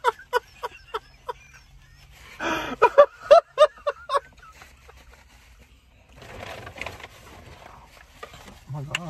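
People laughing in quick repeated bursts, with a second, louder run of laughter about two and a half seconds in. A soft rustling noise follows from about six seconds in.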